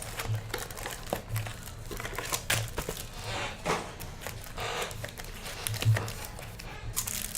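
Foil wrappers of baseball card packs crinkling and tearing as the packs are opened and handled, in irregular short rustles and clicks.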